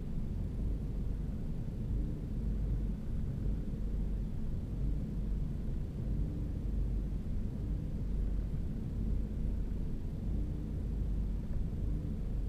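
Ford EcoBoost engine idling roughly after a cold start-up, a steady low rumble with an uneven, shaking loudness: a rough idle that the owner counts among the engine's problems.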